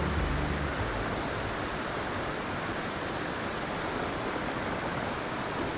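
Steady rush of a small mountain creek running over a rocky riffle into a pool. Background music trails off in the first second.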